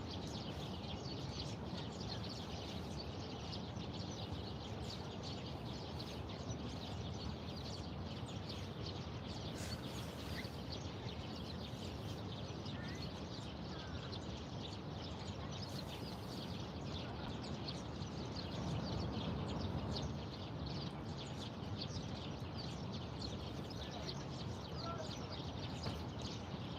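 Many small birds chirping continuously in rapid short notes over a steady low city rumble.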